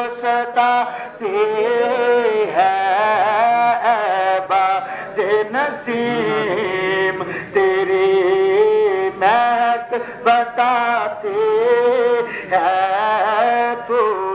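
A man singing an Urdu naat into a microphone, drawing the words out into long, ornamented notes that waver and bend in pitch.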